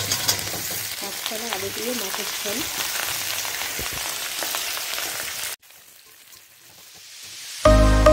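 Potato and eggplant pieces sizzling as they fry in hot oil in a wok, stirred with a metal spatula. The sizzling cuts off suddenly about five and a half seconds in, and music starts near the end.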